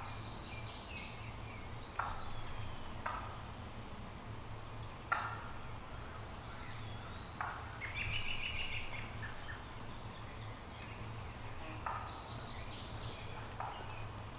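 Wild turkey gobbles: several short gobbles a few seconds apart, with songbirds chirping in the woods.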